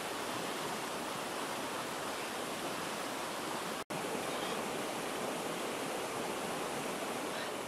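Steady rushing of river water, even and unbroken except for a split-second gap about four seconds in.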